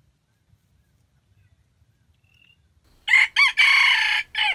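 Red junglefowl rooster crowing once, about three seconds in: two quick notes, a longer held note and a clipped final note, about a second and a half in all.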